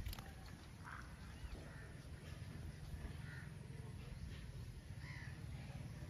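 Faint bird calls, a few short calls spread through, over a low steady rumble, with a short thump right at the start.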